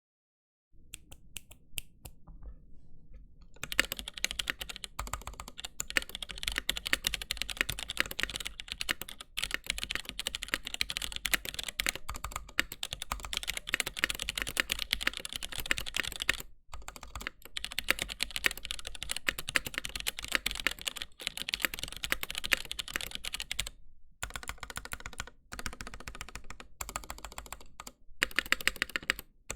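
Mechanical keyboard being typed on for a sound test: a few scattered keystrokes, then fast continuous typing with a dense run of key clicks, broken by a few short pauses.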